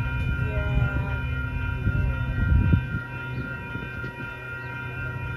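Coaster commuter train pulling into the station: the locomotive runs with a low rumble and a steady, many-toned drone that holds throughout.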